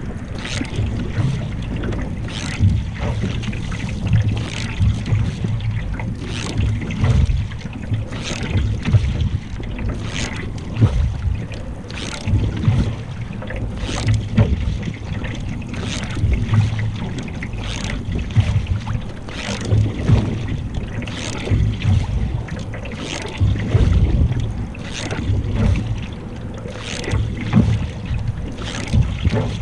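Canoe paddle strokes splashing in the water, about one a second, over a steady low rumble of wind on the microphone.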